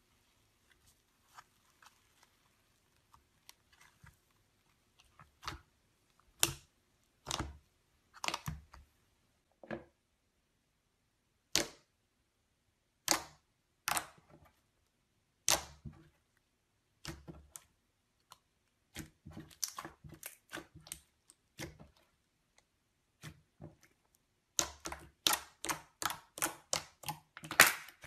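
Sharp, irregular pops and clicks from purple slime as fingers poke and press it, trapped air bursting out of the holes. The pops are sparse at first and come thick and fast near the end.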